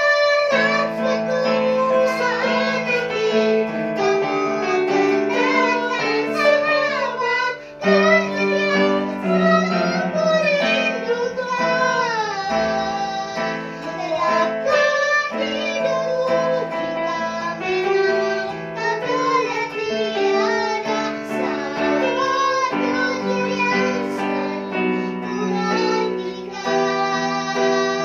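A child singing a melody over continuous instrumental accompaniment, with a short break in the music about eight seconds in.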